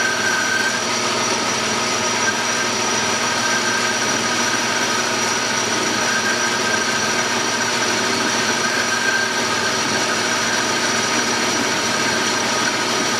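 Metal lathe running steadily, its chuck turning a small part while the tool feeds in at the same depth: a constant machine hum with a steady high whine.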